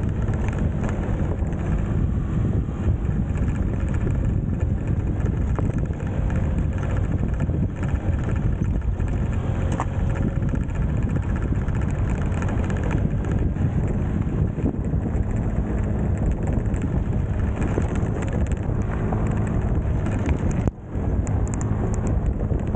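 Small single-cylinder Honda motorbike engine running steadily under way, with wind buffeting the microphone. The sound drops out for an instant near the end.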